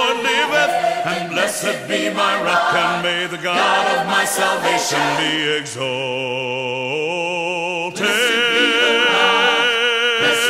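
Background music: a choir singing a Christian worship song in harmony. About halfway through it settles into long held chords, then grows louder again near the end.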